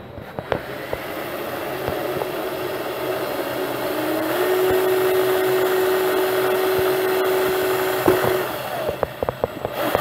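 Cordless drill running, boring a hole through a wooden birdhouse roof. The motor whine rises a little in pitch a few seconds in, holds steady, then stops about eight and a half seconds in, followed by a few clicks.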